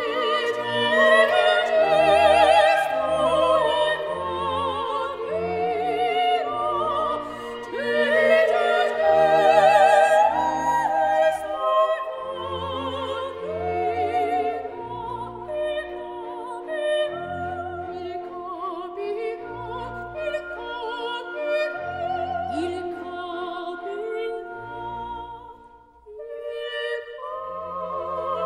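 Background music: operatic singing with wide vibrato over an orchestral accompaniment, breaking off briefly near the end and then resuming.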